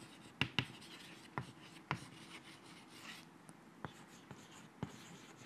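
Chalk writing on a chalkboard: faint scratching, with about six sharp taps as the chalk strikes the board.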